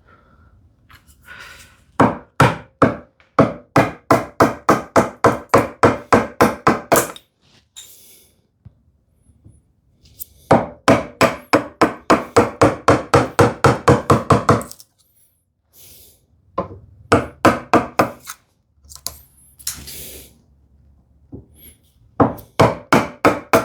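Mallet tapping a chisel in quick runs of strikes, about three or four a second, splitting waste off a tenon cheek along the grain. Two long runs of several seconds each, with shorter bursts of taps before and near the end and pauses between.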